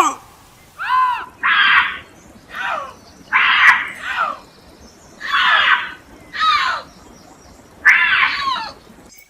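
Bobcat screaming in a quick series of about eight short calls, roughly one a second. Some are pitched yowls that rise and fall; others are harsh and raspy. The calls cut off abruptly near the end.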